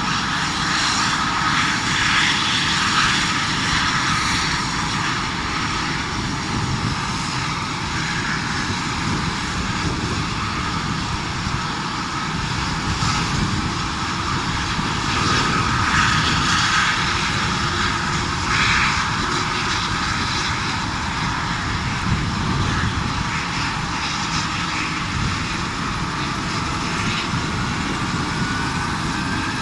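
Helicopter running, a steady engine and rotor noise with a faint high whine, which rises in pitch near the end.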